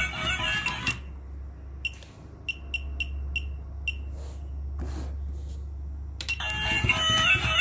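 A melody cuts off about a second in. Six short, high electronic beeps follow over a steady low hum, and the melody starts again near the end.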